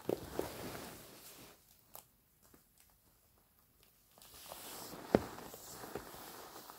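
Handling noise of hands rubbing over leather platform high heels: soft rustling with a few light clicks and knocks, the sharpest about five seconds in, and a near-quiet stretch of a couple of seconds in the middle.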